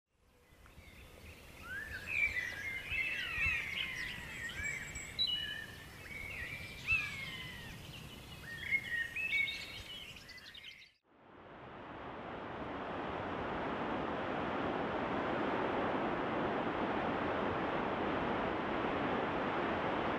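Songbirds chirping and singing, a busy mix of short rising and falling calls, for about the first ten seconds. Then it cuts to a steady rush of sea surf that swells in over a few seconds and holds.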